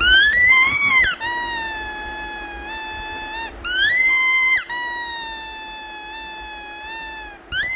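Rubber squeaky toy squeezed in long, drawn-out squeaks: a first one rising in pitch, then a long squeak that slowly sinks, a short higher one about three and a half seconds in, another long sinking squeak, and a last short one near the end.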